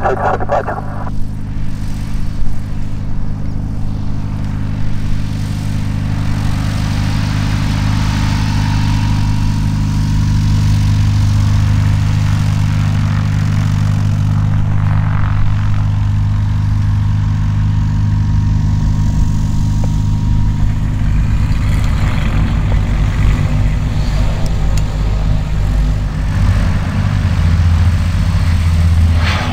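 Propeller aircraft engines running with a steady low drone, getting louder over the last few seconds as a twin-engine plane runs along the runway.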